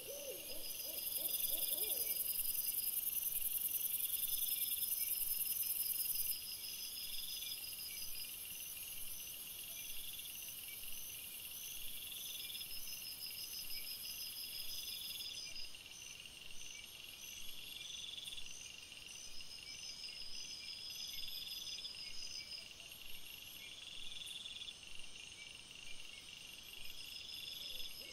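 Night insects, crickets or bush crickets, chirping in a steady repeating pattern, with a louder, very high-pitched insect trill from about one to six seconds in. A brief wavering owl hoot fades out about two seconds in.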